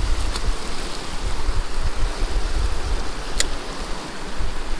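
Creek water rushing steadily, with wind buffeting the microphone as a fluctuating low rumble. Two brief sharp clicks, one just after the start and one about three and a half seconds in.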